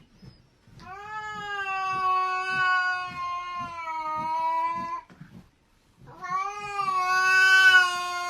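A domestic cat giving two long, drawn-out yowls, each held for several seconds at a fairly steady pitch; the first starts about a second in, the second near six seconds.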